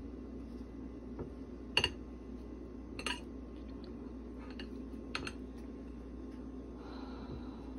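A butter knife clinking against a plate a few times, sharp separate clicks, while margarine is spread on a slice of bread, over a steady low hum.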